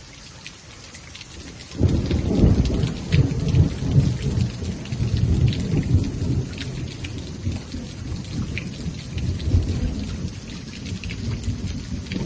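Steady rain with scattered drops striking close by. About two seconds in, a long low rumble of thunder rolls in and carries on under the rain.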